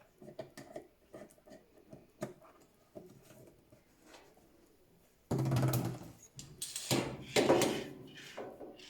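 Handling noises from working on a gas heater's hose and fittings: light clicks and taps, then from about five seconds in, louder rubbing and scraping bursts.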